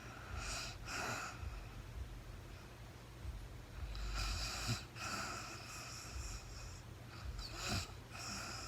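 A sleeping woman's noisy breathing and snoring, with three breaths spaced about three and a half seconds apart.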